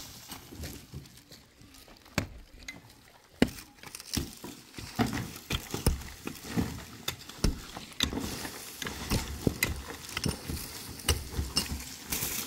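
A pickaxe striking packed earth and rubble in irregular blows, with stones and dirt clattering. The blows are sparse at first and come thick and fast from about five seconds in.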